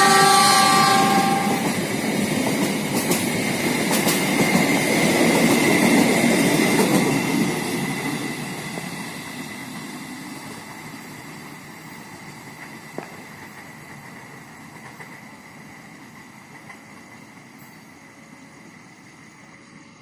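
Mutiara Selatan passenger train running through at speed: a horn note ends about a second and a half in, then the coaches rumble and clatter past, loudest around six seconds in. The sound then fades steadily as the train pulls away, leaving a thin high ringing that dies out.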